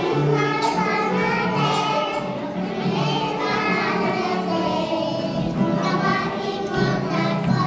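Young children's choir singing a Christmas song together, accompanied by an electronic keyboard holding sustained notes.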